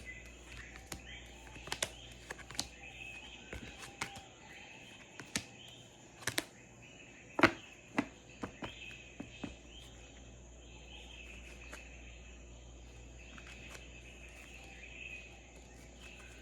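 Recorded jungle ambience of insects and birds, a steady high chirring, with a run of sharp clicks and taps over the first ten seconds, the loudest about seven seconds in.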